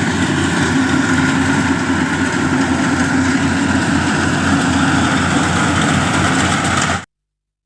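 Yanmar rice combine harvester's engine running steadily with an even low throb, cutting off suddenly about seven seconds in.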